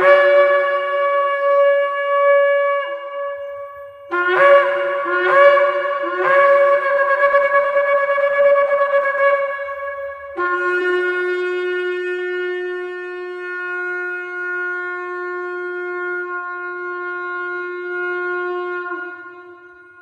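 A long spiralled Yemenite-style shofar being blown. A held blast steps down in pitch near its end, then four short blasts follow about half a second apart and run into a held note. One long, steady blast of about ten seconds then sags in pitch and fades at the end.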